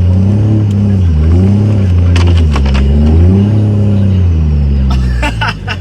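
Dodge Cummins inline-six turbodiesel pickup engine running loud under throttle, its pitch dipping and climbing again several times. Near the end the engine falls back and voices start.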